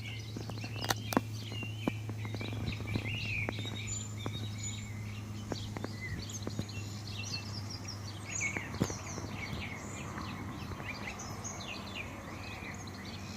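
Many small birds chirping and twittering together in a busy, continuous chorus, over a steady low hum, with a few sharp clicks about a second in and again near nine seconds.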